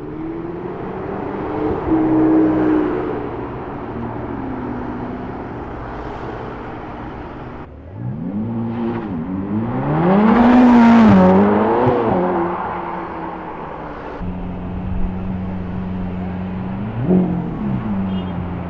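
Supercar engines in three short takes: a Porsche 918 Spyder's V8 driving off, then a Ferrari V8 revving hard, rising and falling, loudest about ten to twelve seconds in, then a Lamborghini Aventador's V12 idling with a quick blip of the throttle near the end.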